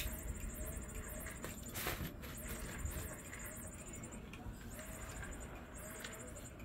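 Small battery-powered cat teaser toy running, its motor whirring in short repeated strokes as the wand sweeps a feather lure around. A few soft knocks sound, the clearest about two seconds in.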